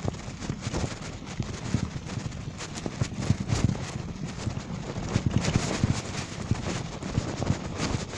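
Bicycle clattering over a bumpy dirt road: frequent irregular knocks and rattles over a low rumble.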